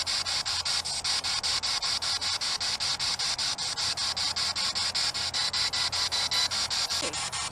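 Radio static chopped into rapid pulses, about five or six a second, typical of a spirit box sweeping through radio stations to listen for spirit replies.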